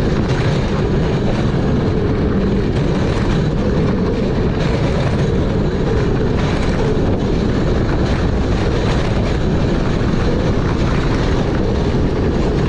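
Lightning Rod wooden roller coaster train running fast along its track: steady, loud track noise mixed with wind rushing over the on-ride microphone.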